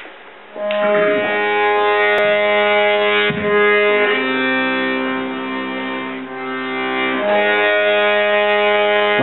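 Accordion playing long held chords. It comes in about half a second in, and the chord changes twice, near four seconds and again about seven seconds in.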